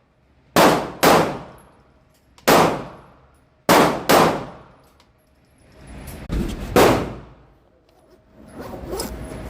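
Gunshots fired on a shooting range, each with a long echoing decay. There are six loud shots at uneven intervals, two close together about half a second apart, and a couple of fainter shots from farther off.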